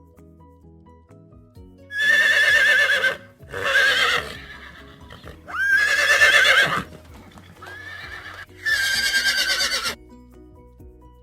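Horse neighing several times, each whinny about a second long with a quavering pitch, over soft background music.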